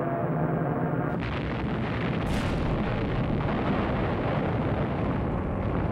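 Aircraft engine drone, then from about a second in a dense barrage of gunfire and explosions: a battle soundtrack of fighter planes strafing an airfield.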